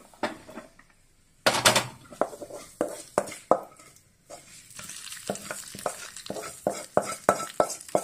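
Hot oil tempering of mustard seeds, shallots, dried red chillies and curry leaves poured into a pot of curry: a sudden loud sizzle about a second and a half in. Then a wooden spatula knocks and scrapes the last of it from the aluminium pan, over a steady sizzling hiss.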